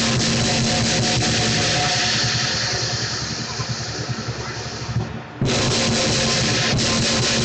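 Lion dance percussion: a large Chinese drum pounded with clashing cymbals in a loud, dense, continuous beat, breaking off for a moment about five seconds in and then starting again.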